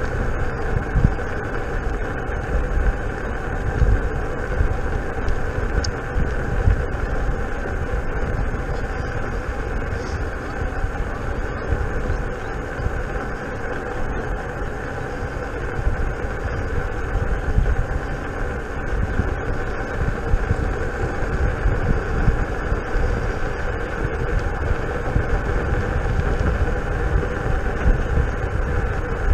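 Steady riding noise from a King Song S18 electric unicycle rolling along an asphalt path: tyre hum and rushing air, with a fluctuating low rumble of wind on the microphone.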